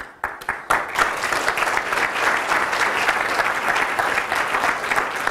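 Audience applauding: a few scattered claps at first, thickening about a second in into steady, dense applause.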